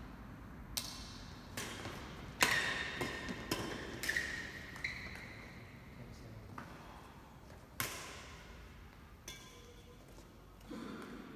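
Badminton rally: sharp cracks of rackets striking the shuttlecock, several in quick succession between about two and five seconds in, then single hits near eight and nine seconds, with short squeaks of shoes on the court floor and a slight echo of the hall.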